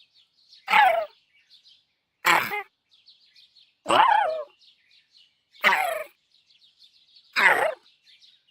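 Cute robot droid voice making 'hurt' vocalizations: five short electronic cries about 1.7 s apart, several falling in pitch, with a faint chirping texture between them.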